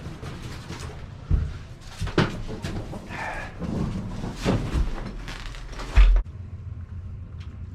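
Knocks, bumps and rustling of people and gear shifting about in a cramped waterfowl pit, ending in a heavy thump about six seconds in, after which everything sounds duller.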